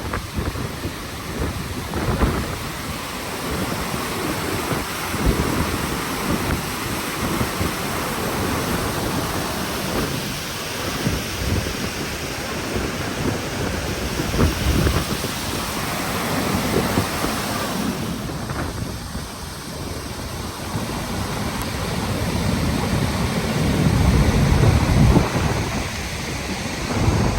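Wind buffeting the microphone in irregular gusts over a steady rushing roar of falling water, with a stronger gust about three quarters of the way through.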